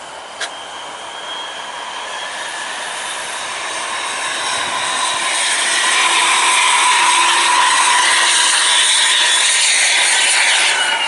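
Highway traffic: tyre and engine noise of passing vehicles, building over several seconds and loudest in the second half, then dropping away near the end.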